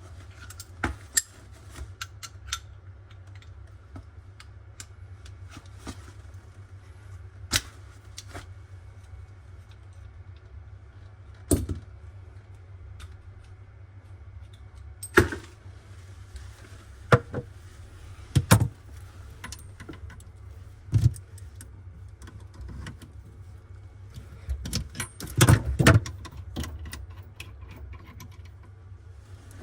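Scattered metallic clicks, clinks and knocks from tools and fittings being handled during kitchen faucet installation work, with a cluster of rattling about 25 to 26 seconds in, over a steady low hum.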